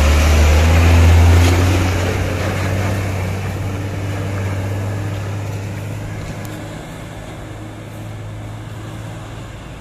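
Hino Ranger tandem-axle dump truck's diesel engine pulling away. It revs briefly near the start, is loud at first, then fades steadily as the truck drives off.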